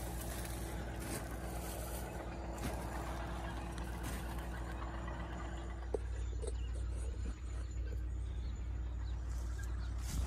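A steady low mechanical drone, like an engine running, holding on with only slight changes in level.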